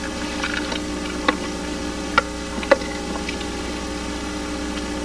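A metal utensil clinking a handful of times against a glass bowl and plate as shredded red cabbage salad is served out, the clicks sharp and irregularly spaced over a steady tape hum.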